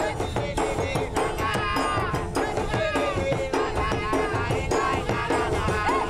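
Mauritian sega music: ravanne frame drums beaten in a quick, even rhythm, with a man singing over them.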